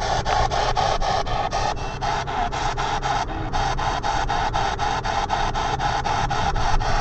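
P-SB7 spirit box sweeping the radio band: a rapid, choppy stream of radio static broken into short bursts, about four to five a second.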